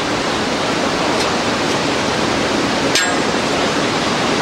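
Steady rushing noise, with one sharp click about three seconds in.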